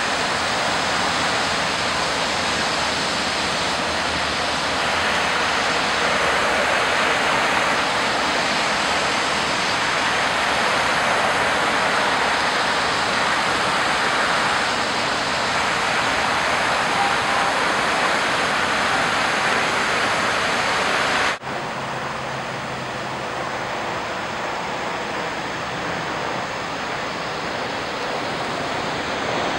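Rain-swollen creek water rushing and churning down a concrete channel, a steady loud rush. About two-thirds of the way through it cuts abruptly to a somewhat quieter rush of water spilling over a low road crossing.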